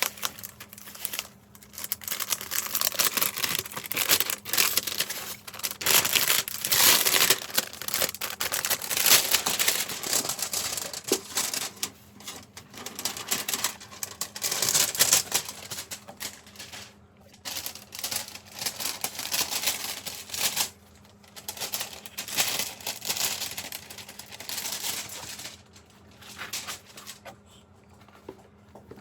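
Plastic and paper packaging crinkling and rustling as it is handled and pulled apart, in repeated bursts with short pauses.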